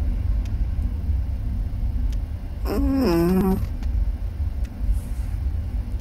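A sleeping Chihuahua dreaming lets out one short whining moan a little under three seconds in, its pitch bending and sliding downward. A steady low rumble runs underneath.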